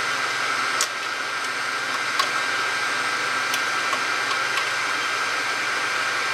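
Steady hiss of a machine blowing air, with a faint steady whine, and a few light clicks and knocks as the rotary attachment is set on the laser bed.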